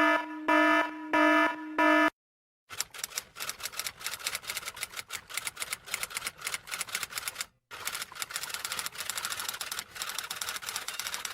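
Four short buzzer-like beeps, then a long run of rapid typing keystrokes with a brief pause partway through.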